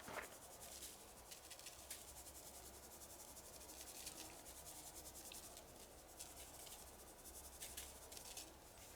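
Crickets chirping faintly in a fast, even pulse.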